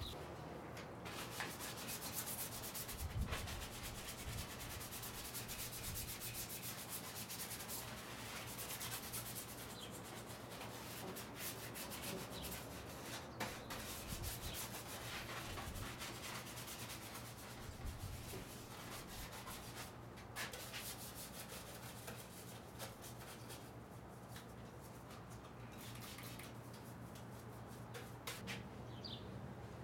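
Hand wiping and rubbing over the plastic engine cover and trim of the engine bay, a continuous low scrubbing as a ceramic detailer is worked onto the parts.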